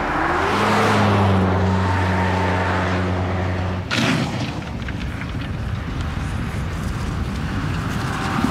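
A car driving past on a country road, its engine and tyre noise swelling and then fading. Just before four seconds in, the sound changes abruptly to a Jeep Cherokee driving over rough grass with its engine running.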